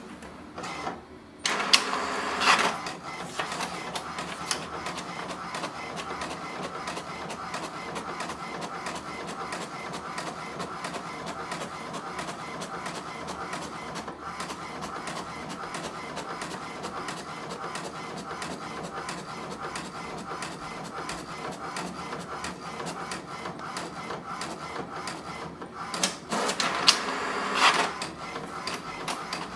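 HP DeskJet 4255e inkjet printer printing a page. It runs with a steady rapid ticking as the print carriage moves back and forth, with louder bursts of motor noise about two seconds in and again near the end.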